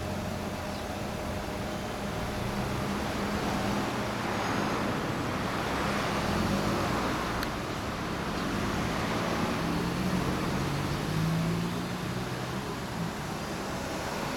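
Honda Fusion 250 scooter's single-cylinder four-stroke engine idling steadily through an aftermarket Real Speed Helix stainless slip-on muffler, its note lifting slightly a little past the middle.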